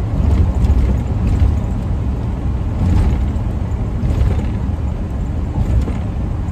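Steady road and engine rumble heard from inside a moving van's cabin.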